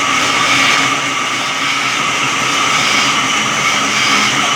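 Electric sawmill's saw running through a log, a loud, steady grinding and whining noise without a break.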